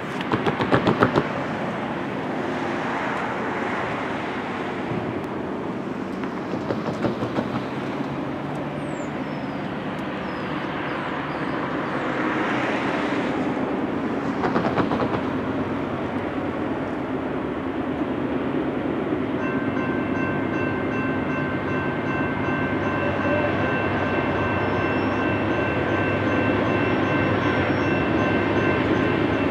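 The Nathan P5 five-chime air horn of Norfolk Southern GE AC44C6M locomotive #4020 comes in about two-thirds of the way through and sounds as one long held chord. Underneath, the approaching train's steady rumble slowly grows louder.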